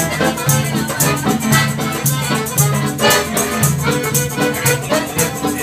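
Accordion playing a tune with bass and chords, accompanied by a tambourine whose jingles keep a steady beat.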